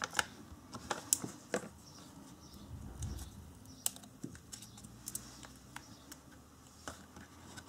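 Hands handling paper card pieces and small embellishments on a craft mat: scattered light taps and clicks, a cluster at first and a few more around the middle.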